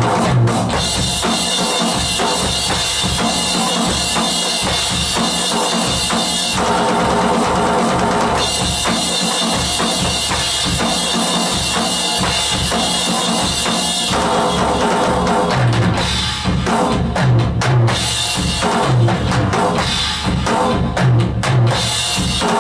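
Roland HD-3 electronic drum kit being played in a continuous groove: bass drum, snare and cymbals, with the bass drum hits coming harder and more often in the last few seconds.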